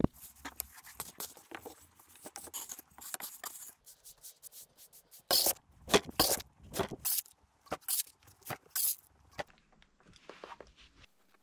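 Casting sand being worked by hand. A metal scoop scrapes and rustles as it digs sand out of a metal bin, loudest in a cluster about five to six seconds in, with scattered light knocks as the wooden mould box is handled near the end.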